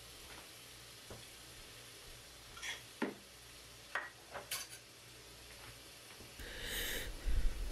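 Dishes and cutlery clinking now and then as they are washed by hand in a kitchen sink under a running faucet, with faint water hiss throughout. Near the end there is a louder, longer rush of noise.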